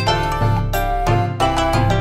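Background music: a plucked-string melody over a steady bass beat.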